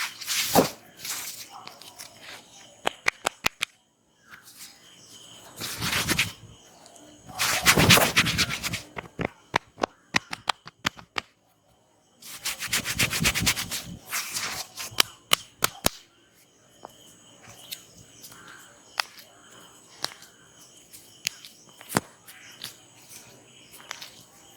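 Hands massaging a head: several bursts of brisk rubbing, each a second or two long, and runs of quick sharp taps, over a steady chirping of crickets.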